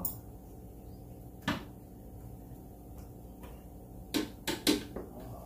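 A sharp click about one and a half seconds in, then a quick run of three or four clicks and knocks near the end, from screws and plastic trim being handled around a car's cowl while parts are taken apart under the hood.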